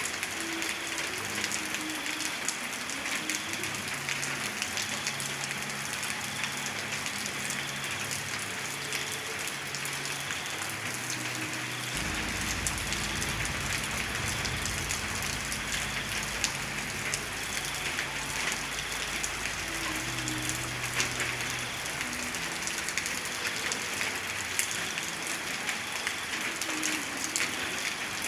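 Steady rain, with many separate drops ticking through the hiss. A low rumble comes in suddenly about twelve seconds in and fades out about ten seconds later.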